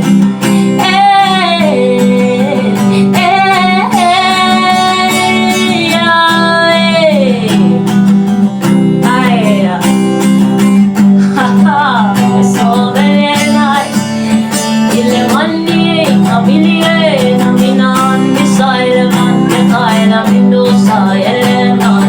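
Acoustic guitar strumming under a wordless vocal line that glides up and down in long held notes.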